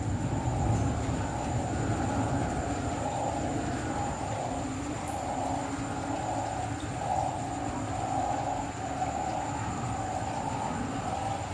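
A chorus of frogs calling after rain at night: many overlapping calls that merge into a steady drone, swelling and fading in patches about once a second, with a thin steady high tone above.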